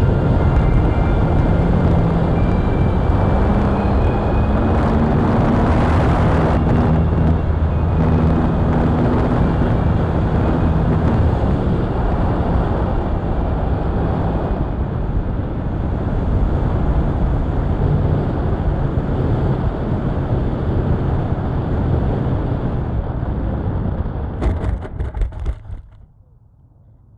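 Onboard sound of a 1250 mm RC Hawker Tempest model plane in flight: wind rushing over the microphone with the drone of its electric motor and propeller, the pitch shifting with throttle. Near the end there are a few bumps as it touches down on grass, and the noise falls away as it comes to rest.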